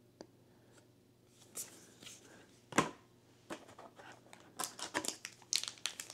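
Trading cards and a foil booster pack being handled: a sharp tap about three seconds in, then the pack is pulled from its cardboard display box and its foil wrapper crinkles and rustles in the hands, growing busier toward the end.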